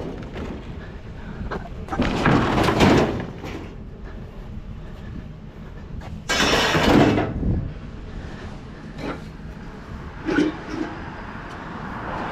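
A bulky scrap item being handled and loaded: two loud scraping, clattering noises, about two seconds and six and a half seconds in, with lighter knocks later, over a steady low rumble.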